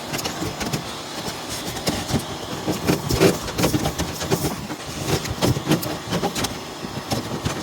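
Vacuum cleaner sucking lint and dog and human hair out of a dryer's heater housing, with the nozzle rattling and knocking irregularly against the sheet metal.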